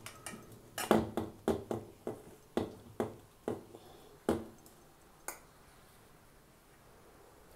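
A steel spoon knocking and scraping against a stainless-steel bowl while stirring thick batter. The sharp knocks come about twice a second for about four seconds, with one last knock a second later.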